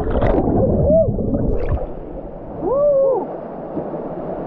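Muffled water gurgling and sloshing in a canyon pool, with two short rising-and-falling whoops, one about a second in and a longer one near three seconds.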